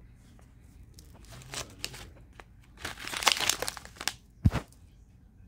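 Clear plastic packet of dried rose buds crinkling as it is handled, in uneven bursts that are loudest a little past the middle. A single thump about four and a half seconds in.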